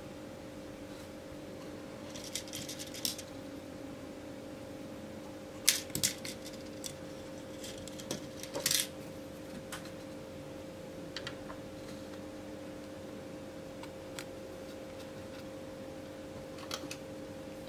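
Scattered light clicks and small metallic ticks as resistors and other small components with wire leads are handled and set onto a printed circuit board, in several brief clusters, over a steady faint hum.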